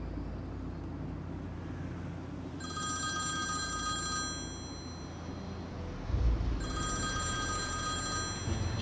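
Phone ringing: two rings of a bright electronic ringtone, each about a second and a half long, over a low steady rumble, with a low thud a little past halfway. It is an incoming call that is left unanswered.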